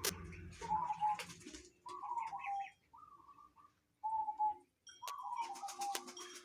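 Zebra dove (perkutut) cooing, a local bird with a call its keeper calls strange: about six short phrases of clipped, warbling coo notes with pauses between. Sharp clicks come in between, a quick run of them about five seconds in.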